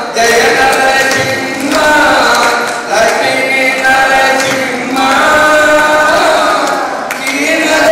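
A group of men singing in unison, led by one voice on a microphone, in phrases of long held notes with short breaks between them.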